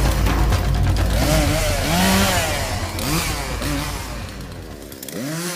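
Chainsaw running and fading away as it is carried off, cutting out about five seconds in. Rising-and-falling wailing tones sound over it.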